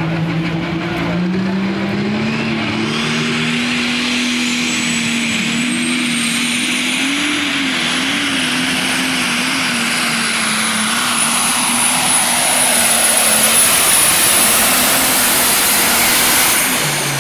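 Super stock pulling tractor's turbocharged diesel engine run up to full power on a pull, with a turbo whistle climbing to a high steady scream over the engine. The engine note wavers as it works against the sled and gets louder past the middle, then cuts back just before the end.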